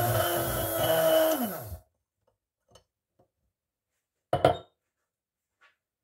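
Small handheld electric frother whipping coffee, sugar and a little water, its motor running steadily and then winding down in pitch as it is switched off about a second and a half in. A single knock about four seconds in.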